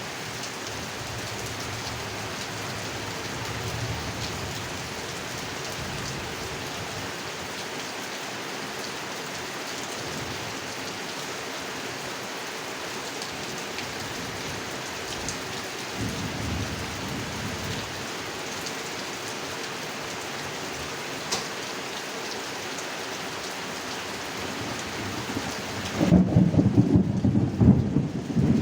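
Steady heavy rain falling on a pond, with faint low rolls of thunder. Near the end a loud thunder rumble breaks in and becomes the loudest sound.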